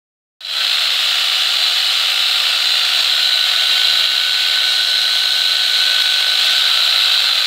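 Angle grinder with a chainsaw bar-and-chain attachment switched on about half a second in and running at a steady speed: a loud, high motor whine over a steady rush.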